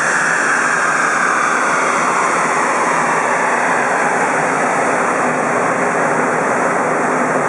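Car on a chassis dyno spinning down after a full-throttle run: a whine falls in pitch and fades over the first couple of seconds, under a steady loud rushing noise.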